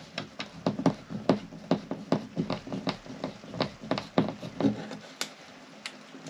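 Hand screwdriver driving a screw into a soft wood panel: a quick, even run of clicks at about four a second that stops about five seconds in, then a couple of single clicks.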